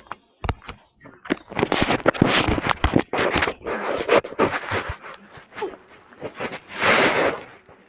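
Close rustling and scraping against the microphone, broken by many sharp clicks, with a louder burst of rough noise near the end.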